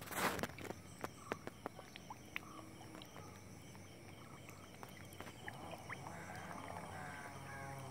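A brief splash, then a run of sharp smacking pops, densest in the first few seconds, as big gourami and koi gulp at the pond's surface.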